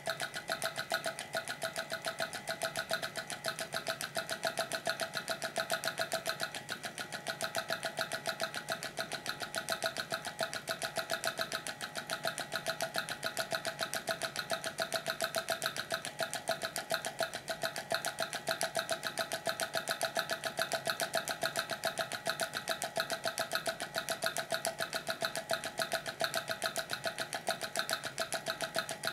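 Homemade electromagnetic beat machine, switched by a reed switch and magnet, tapping a small rod on a metal jar lid over and over: a fast, even, ringing metallic rattle.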